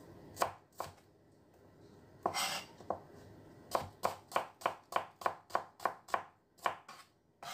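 Kitchen knife slicing small red onions on a cutting board: a few separate cuts, then a quick even run of knife strokes against the board, about three a second, in the second half.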